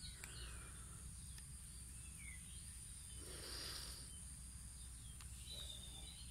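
Quiet outdoor background with a steady high-pitched insect drone, a few faint clicks from hands handling a spinning reel, and a soft rustle about three seconds in.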